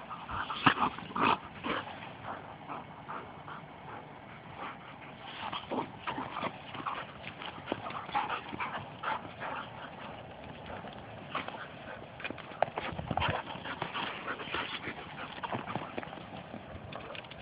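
Two Labrador retrievers play-wrestling, with irregular short yips and whines that come in bunches near the start and again after about twelve seconds.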